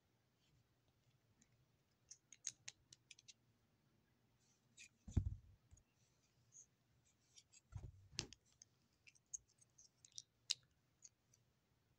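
Faint, scattered small clicks and scratches of handling, with two dull thumps about five and eight seconds in.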